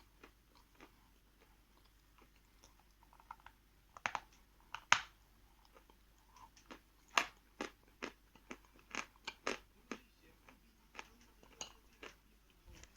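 Person biting and chewing a lump of 'Khrustal' (crystal) chalk, giving a string of sharp, dry crunches. They are sparse at first and come thicker and louder from about four seconds in.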